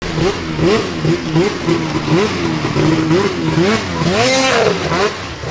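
Race snowmobile's two-stroke engine revved in quick throttle blips, its pitch rising and falling over and over, with a longer, higher rev about four seconds in.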